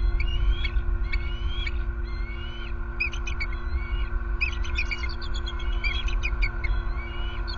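Bald eagles calling: a run of high rising whistled notes about twice a second, then from about three seconds in rapid chittering series of short piping notes. A steady low rumble and hum run underneath.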